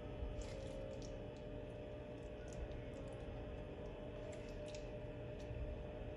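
Silicone spatula lifting fried potato slices and vegetables from a frying pan onto a plate, with scattered light clicks and soft squelches of food, over a steady low hum.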